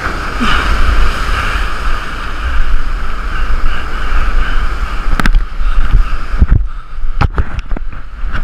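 Surf crashing and washing over rocks, with wind buffeting the microphone. Several sharp knocks come in the last few seconds.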